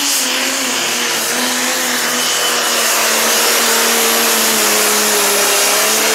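Pro Stock pulling tractor's single-turbo diesel engine running flat out while it drags the weight sled. A loud, steady, high-revving note that slowly sags under the load and picks up again near the end.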